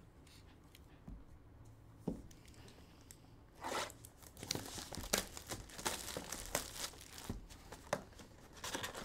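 Sealed trading-card hobby box being unwrapped: plastic wrap crinkling and tearing in quick crackles from about three and a half seconds in. Quiet before that except for a single tap about two seconds in.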